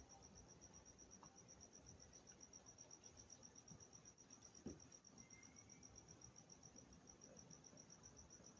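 Faint insect chirping: an even, rapid, high-pitched pulse of several chirps a second, with a single soft knock a little past halfway.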